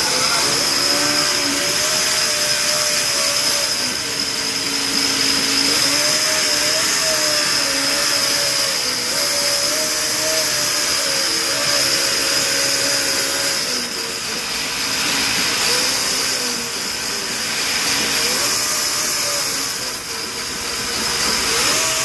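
Sawmill saw cutting hardwood: a steady high whine over a dense hiss, with a lower running note that wavers, sags and rises again every few seconds as the cut loads the saw.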